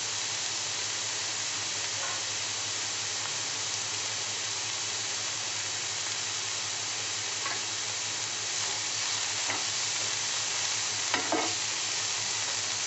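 Chopped onion, tomato and green chilli frying in butter in a nonstick pan, with a steady sizzle. Near the end a spatula stirs through them, scraping the pan a few times.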